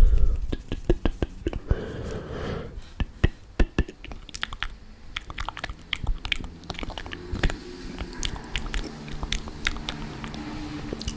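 Close-miked ASMR mouth sounds: a long irregular run of sharp clicks and smacks from the mouth and tongue.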